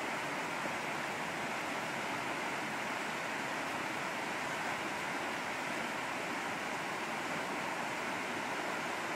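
Water pouring over a concrete dam spillway and running across the flooded apron below: a steady, unbroken rush.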